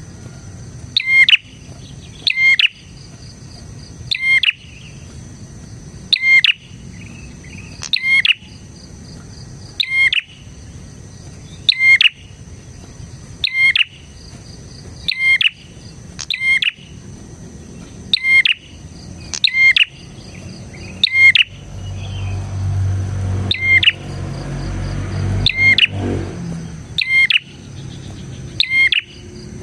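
A prenjak (prinia) calling over and over: short, sharp chirps about every one and a half to two seconds, over a steady high-pitched hum. A low rumble rises under the calls for a few seconds near the end.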